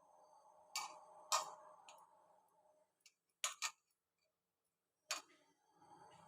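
Five sharp clicks over a faint steady hum: one about a second in, another half a second later, a quick pair about three and a half seconds in, and one near the five-second mark.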